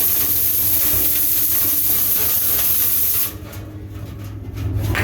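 A loud hiss of rushing air that cuts off suddenly about three seconds in, over a steady low machine hum that carries on and swells again near the end.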